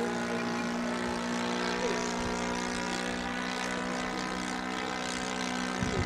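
The engine and propeller of a Seagull Models Bücker Jungmeister radio-controlled model biplane, running at a steady throttle in flight overhead with an even, unchanging note.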